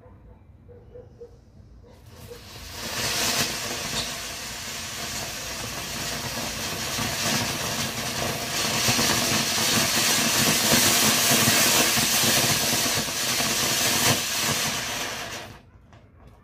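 Jumbo brand Snow Fountain firework spraying sparks with a loud, steady hiss. It catches about two seconds in, grows stronger around the middle, and cuts off shortly before the end.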